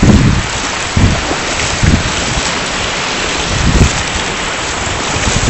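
Small surf waves washing and splashing close by, with wind buffeting the microphone in low gusts about a second in, near two seconds and near four seconds.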